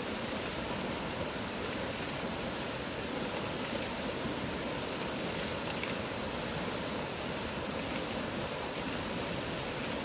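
Loud mountain river flowing fast over rocks in rapids: a steady, even rush of water.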